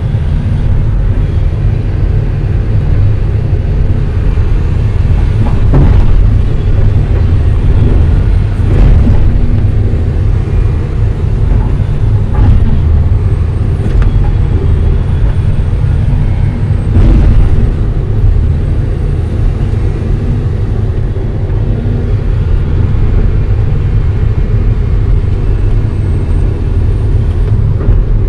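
Excavator's diesel engine running hard, heard from inside the cab as a loud, steady low drone, with a faint high whine that rises and fades now and then. Several knocks and clunks come through as the bucket works rocky fill.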